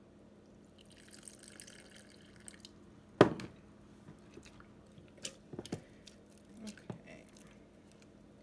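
Water poured in a short stream from a glass measuring cup into a glass mason jar of sourdough starter, then one sharp knock, the loudest sound, as the glass cup is set down. After that come small clicks and wet scraping as a silicone spatula stirs the thick starter in the jar, loosening it as the water mixes in.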